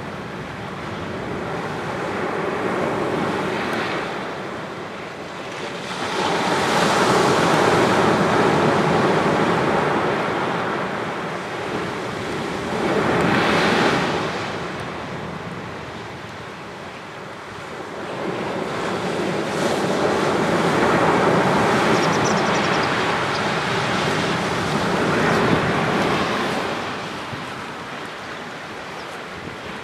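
Waves breaking on a sandy beach and washing up the shore in a slightly rough sea. Each wave swells and then falls back over several seconds, with the louder surges some seconds apart.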